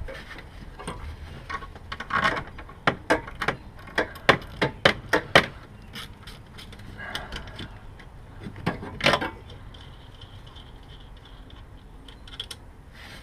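Ratchet wrench with a 15 mm socket clicking in quick, uneven runs as the top nut of an alternator bracket is loosened. A couple of louder clicks come later, then quieter tool handling.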